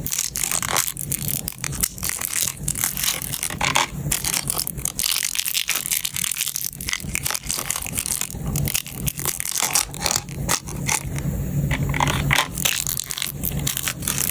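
Batteries being handled and placed one at a time into a plastic storage case: dense, irregular clattering clicks and scraping.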